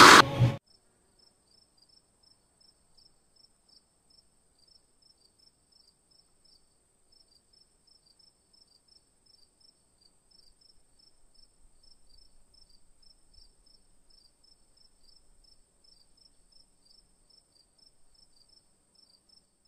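Faint cricket chirping, about two chirps a second over a thin, steady high tone, with all other sound muted: a crickets sound effect standing in for silence.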